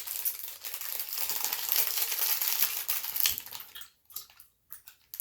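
Close-up crinkling, scratching rustle for about four seconds, thinning out into a few faint scrapes near the end.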